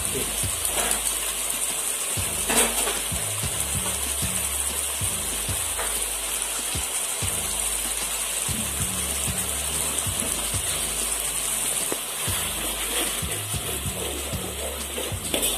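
Thick sardine and potato sambal simmering in a pan: a steady sizzling, bubbling hiss as the sauce reduces and thickens, with background music underneath.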